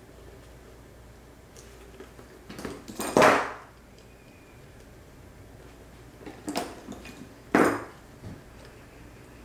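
Three short, loud handling noises: the clear PVC bag and a pair of pliers being handled while the pliers work the zipper pull. The first and loudest comes about three seconds in, and the other two come near the end, about a second apart.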